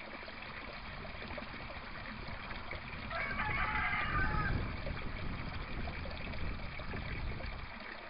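Water trickling in an aquaponics tank as the U-siphon starts to take off while the water level still rises. It swells about three seconds in, then settles back.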